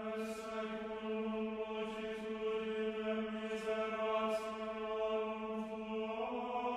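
Background music: a single low chant-like drone note with many overtones, held without a break and shifting slightly in pitch about six seconds in.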